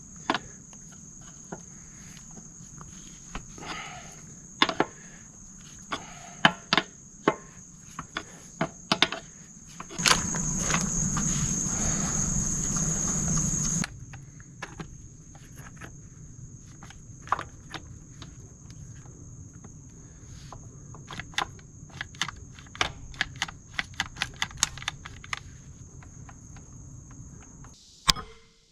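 Scattered clicks and clinks of hand tools on a hydraulic hose fitting, over a steady high insect drone. About ten seconds in, a louder rushing noise runs for about four seconds and then stops suddenly.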